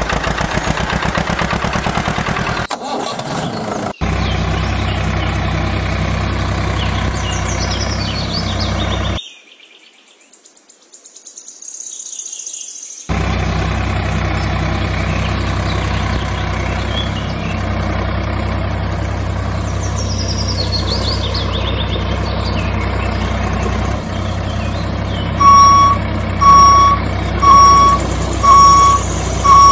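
Diesel tractor engine idling steadily. It breaks off into near quiet for a few seconds about a third of the way in, then runs again. Near the end a reversing alarm beeps about once a second.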